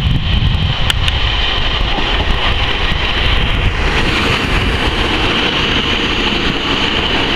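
First Great Western Class 150 Sprinter diesel multiple unit running slowly into the platform alongside the microphone: its underfloor Cummins diesel engines and wheels on the rails make a steady noise as it slows to a stop.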